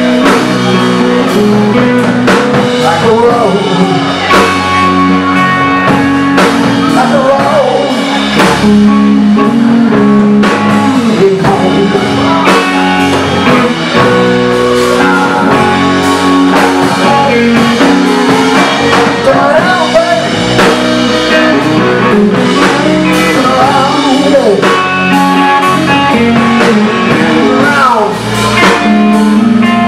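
Live blues-rock band playing loud: electric guitar with bent, gliding notes over electric bass and a drum kit.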